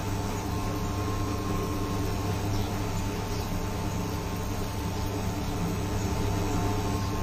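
Steady hum and fan noise of an induction cooktop running under a covered pan of simmering curry, with a thin high tone above the low hum.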